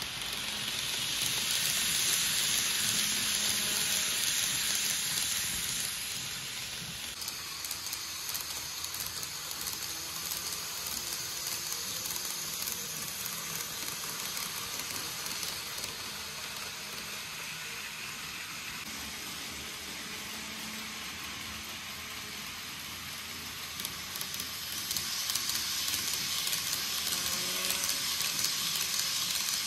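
N-gauge model trains running on track: a steady rolling hiss and rattle of small metal wheels on rail, louder twice, near the start and near the end, as a train passes close.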